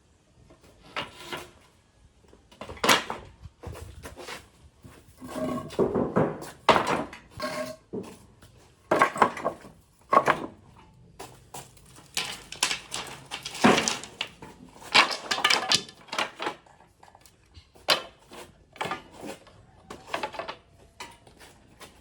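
Irregular knocks, clacks and clatter of wood and tools being handled and set down, some with a brief ringing note.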